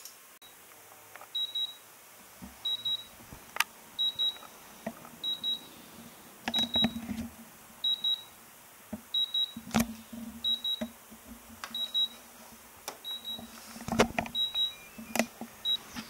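Homemade Raspberry Pi alarm's buzzer beeping: short high double beeps repeating evenly about every 1.3 seconds, with scattered clicks and knocks of handling among them.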